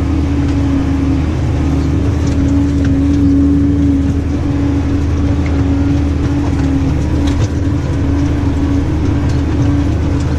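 New Holland tractor's engine running steadily under load, heard from inside the cab as an even low drone with one held tone over it.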